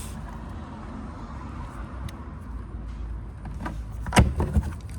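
A few sharp plastic knocks and clicks, a small cluster near the end, as the lower plastic undercover is worked into place, over a steady low rumble.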